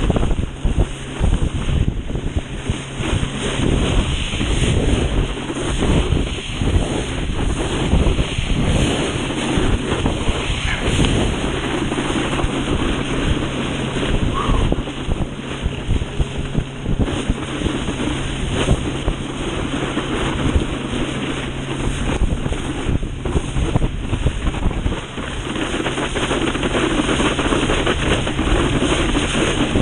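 Wind buffeting the microphone and water rushing and spraying under a knee board towed at speed behind a boat, with a low steady hum through most of it.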